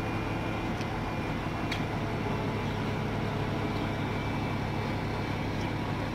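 Diesel multiple unit standing at the platform with its engine idling: a steady low hum with a faint click about two seconds in.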